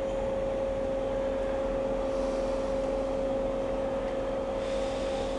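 A steady mechanical hum with a constant mid-pitched whine, unchanging throughout; a faint hiss rises slightly near the end.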